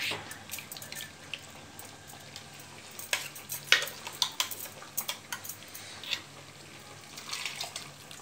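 A metal spoon scraping and clinking irregularly inside a steel mixer jar as a ground masala paste is stirred with water, then the paste pouring into a pot of simmering chickpeas near the end. A faint steady low hum runs underneath.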